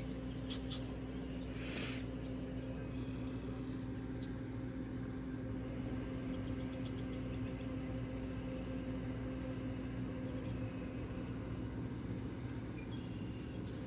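Steady mechanical drone of a running motor, holding one constant hum pitch without change, with a few faint high chirps in the middle.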